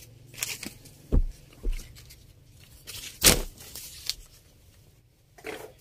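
Lawn cotton fabric being handled: several rustling swishes and soft flaps as a printed length is unfolded and laid over the pile. The loudest comes a little past halfway.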